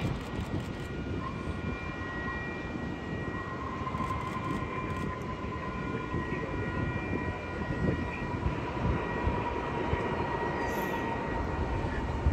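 Airbus A350's Rolls-Royce Trent XWB engines heard from a distance during the landing roll-out just after touchdown: a steady rumble with a faint whine that slowly drifts lower in pitch as the airliner slows down the runway.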